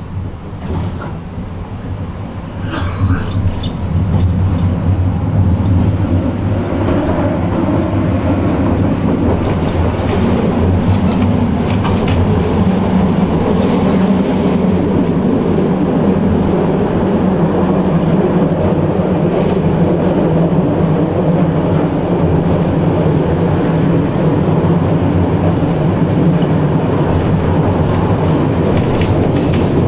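Tram running on its rails, heard from on board. It grows louder over the first four seconds, then runs on steadily with a rumble of wheels on rails.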